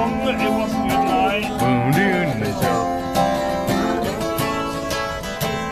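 Acoustic guitar strummed in a steady rhythm of chords, with a voice singing along over the first half.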